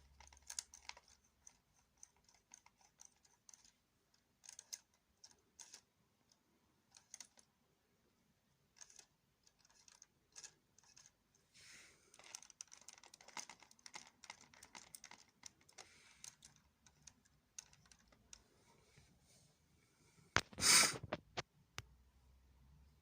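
Light plastic clicking and rattling of Lego parts, scattered and irregular, with a denser run of clicks in the middle. Near the end comes one loud clatter.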